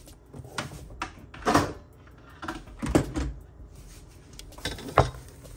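Several separate knocks and clunks of kitchenware being handled and set down, the sharpest one near the end, as the mixing equipment is cleared away after beating the masa mixture.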